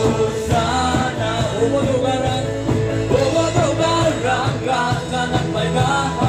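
Amplified worship song: voices singing a melody in Garo over a band with a steady beat, played through loudspeakers.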